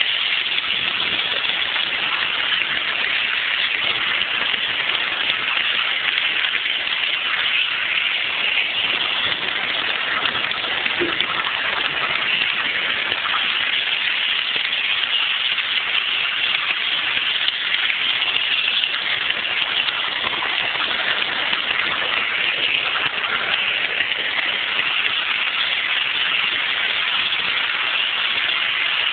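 Märklin model train running on its track, heard from a phone riding on the train: a steady, even rattling rush of wheels on rails and the running motor.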